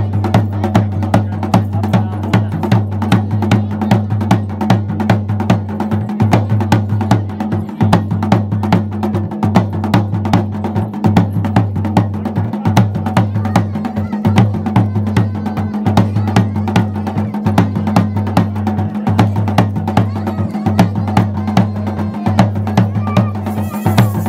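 Drums played in a fast, even beat, with a steady low drone beneath.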